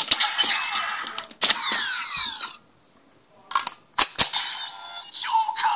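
Kamen Rider Double Driver toy belt being worked by hand. Sharp plastic clicks set off bursts of its electronic sound effects, with sweeping tones in the first burst. There is a brief silence midway, then more clicks and another burst of electronic effects and voice-like sound near the end.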